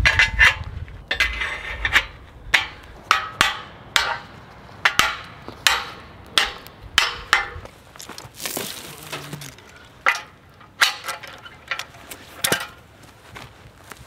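A string of sharp metallic clinks and clanks at uneven intervals, some ringing briefly: steel fence-stretching gear, a chain-and-lever wire stretcher hooked to a stretcher bar, being worked against woven wire fence. A short rustle about two thirds of the way through.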